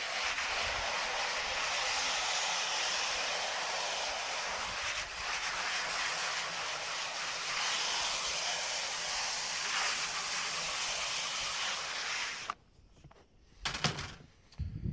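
Steady hiss of a water spray nozzle washing water-based screen-printing ink out, which stops abruptly about two and a half seconds before the end, followed by a couple of brief knocks.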